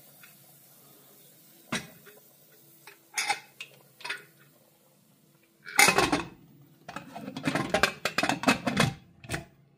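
Stainless-steel pressure cooker lid clinking and clattering against the pot as it is set on and worked into place: a few separate clinks at first, then a loud clatter about six seconds in and a run of quick metal knocks and scrapes.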